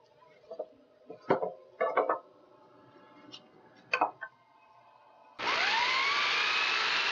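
A few knocks and clicks from hands handling the wooden stock. About five seconds in, an electric drill starts, its whine rising in pitch as the motor comes up to speed, then runs steadily as it bores a hole about an inch deep into the wood.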